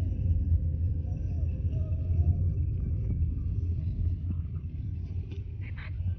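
Road noise inside a moving car: a steady low rumble of engine and tyres, growing quieter toward the end as the car slows.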